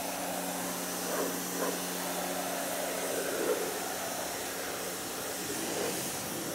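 TEANDE TE5240 1800-watt electric pressure washer running: the electric motor and pump hum steadily under the hiss of the water jet spraying a car's wheel and body panel.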